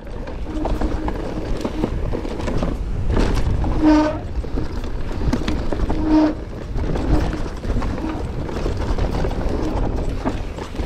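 Mountain bike riding fast down loose, rocky singletrack: wind rushing over the microphone, with tyres crunching and the bike clattering over rock. Two short pitched squeals, about four and six seconds in.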